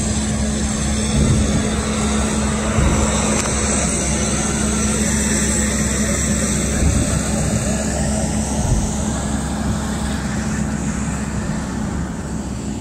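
Steady outdoor rushing noise, like traffic sound or wind, over a constant low hum; no single event stands out.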